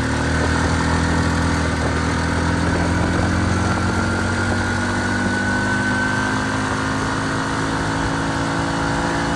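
2005 Arctic Cat 400 automatic ATV's single-cylinder four-stroke engine running steadily under way at cruising speed, with a faint high whine that slowly rises in pitch.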